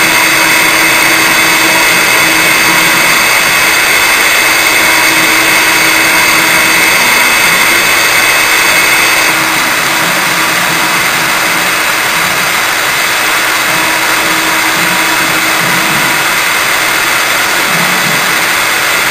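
CNC router spindle running at high speed with a steady whine while its cutter engraves lettering into a brass plate. It drops a little in level about halfway through.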